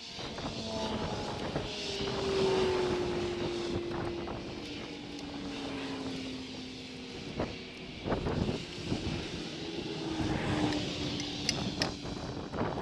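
Engine of a passing vehicle, its tone falling slowly in pitch as it goes by, followed later by a second falling engine tone. Several sharp metallic knocks and clicks from tools sound in between.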